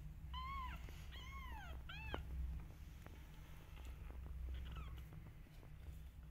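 Young kittens mewing: three high calls in quick succession in the first two seconds, each rising and then falling in pitch, and a fainter one near five seconds in.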